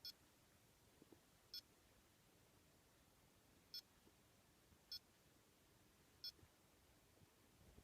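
Five short, high electronic beeps at irregular intervals over near silence, the keypad beeps of a handheld automotive scan tool being stepped through its data-stream parameters.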